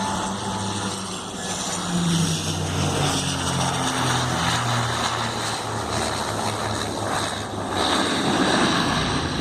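Twin Pratt & Whitney PW118 turboprop engines and propellers of an Embraer EMB-120 Brasília running, a steady propeller drone over a broad rushing noise. The low propeller hum drops in pitch about two to four seconds in.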